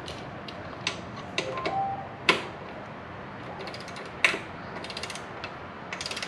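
Hand ratchet and torque wrench tightening the bracket screws to 20 foot-pounds: runs of fast pawl clicking, with sharper single clicks about two seconds in and again about four seconds in.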